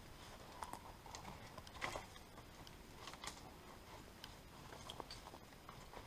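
Faint, irregular crunches and small snaps of footsteps moving through snow and dry brush.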